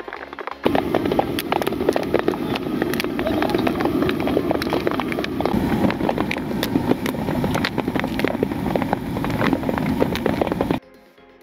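Popcorn popping in hot oil in a large metal wok: a dense, loud crackle of quick sharp pops over a sizzling hiss. It cuts in about a second in and stops abruptly near the end, leaving faint music.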